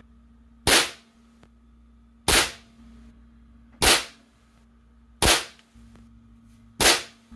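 Five shots from a Crosman 2240 .22 CO2 air gun built as a carbine with a 14.6-inch barrel, each a sharp short crack, fired evenly about a second and a half apart.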